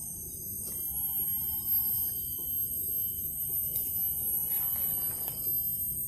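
Steady high-pitched drone of cicadas in tropical forest, several unbroken shrill tones, over a low rustle and rumble of movement in the undergrowth.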